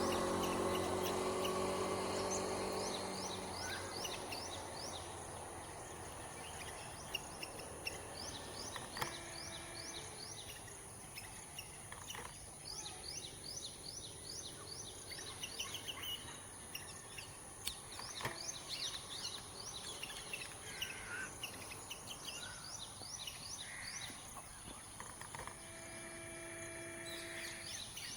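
Outdoor woodland ambience: a steady high insect buzz, with small birds chirping in quick repeated series. A low engine hum fades away in the first few seconds, and a short, held, tonal call sounds twice.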